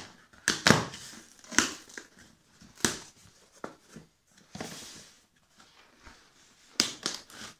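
Cardboard box being torn open by hand: a string of short, sharp rips and scrapes of cardboard at irregular intervals, with some rustling of the crumpled paper packing inside.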